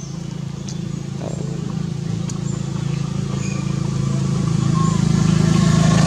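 A steady, low engine-like hum that slowly grows louder.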